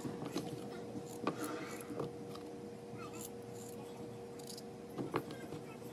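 Kitchen knife cutting through raw peeled potato held in the hand, a few irregular crisp cuts and clicks, with a faint steady hum underneath.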